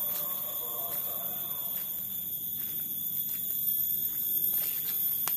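Steady, high-pitched insect drone in tropical forest, several unbroken whining tones held throughout, with a few soft clicks of handling on the lapel microphone.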